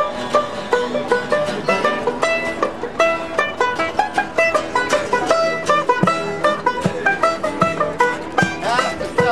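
Five-string banjo and twelve-string acoustic guitar playing a blues together, the banjo picking a quick melody of plucked notes over the strummed guitar.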